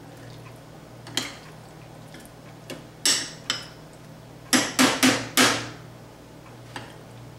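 Metal spoon clinking against glass custard cups while stirring a thick creamy filling: scattered sharp clinks, with a quick run of four about halfway through.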